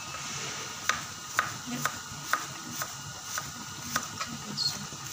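Sumenep shallots deep-frying in a large aluminium wok of oil: a steady hiss with sharp, irregular pops about twice a second.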